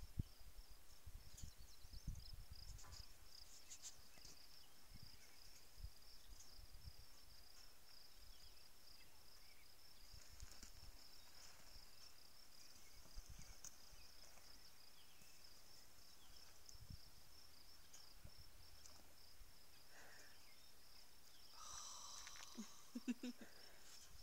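Faint, steady, high-pitched insect trill, finely pulsing and unbroken, with a few low wind rumbles on the microphone in the first seconds.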